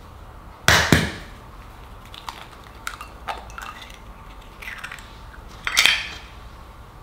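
An egg knocked twice against the rim of a ceramic bowl about a second in, then small crackles and clicks as the shell is pulled open over the bowl. Near the end there is another sharp knock as the empty shell is set down in a ceramic egg tray.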